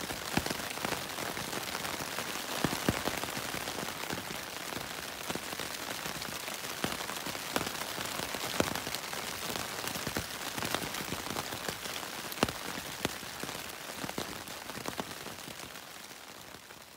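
Steady rain falling on the fly of a Zpacks Altaplex tent, a Dyneema-fabric shelter, heard from inside, with many sharp single drop hits on the fabric. It fades out near the end.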